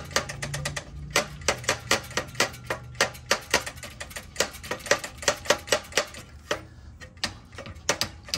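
Stock slip-on muffler of an Indian Scout Rogue clacking at its loosened joint with the header pipe as it is wiggled back and forth by hand, its clamps and bolts already removed. It makes a quick, uneven series of clicks and knocks, about four a second.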